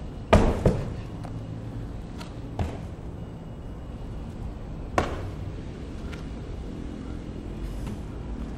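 A large heavy tire flipped over and slamming flat onto concrete about a third of a second in, with a smaller bounce right after. A softer thud follows a couple of seconds later, then another sharp impact about five seconds in, as someone jumps on and off the tire.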